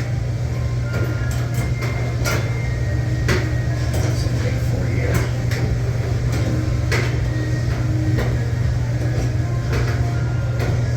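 A steady low machine hum, with scattered sharp clicks and knocks of hand-tool and metal-handling work on refrigeration equipment.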